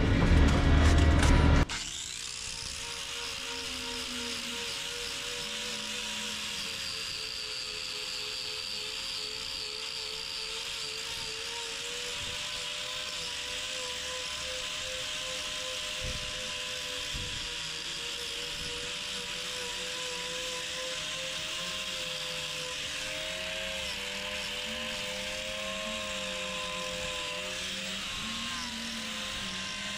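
Handheld electric angle grinder with a hoof-trimming disc running steadily as it grinds down the sole of a cow's claw, its whine wavering slightly in pitch as the load changes.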